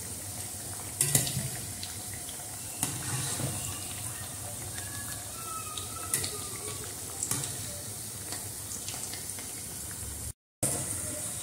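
Chicken chilli pakoras sizzling and bubbling in hot deep-frying oil, with a few light clinks as a wire spider skimmer turns them to fry their second side.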